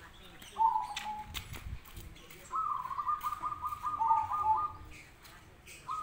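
Zebra doves cooing back and forth. There is a short falling coo about a second in, then a long, rapid string of staccato notes, a second falling coo just after four seconds, and another call beginning at the very end.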